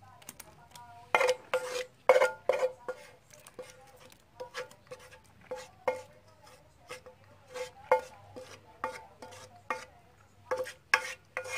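A spoon scraping and knocking irregularly against a mixing bowl as a thick, wet bread-pudding mixture is scraped out and poured into a dish. Many of the knocks ring briefly, with a cluster of louder ones about a second in and again near the end.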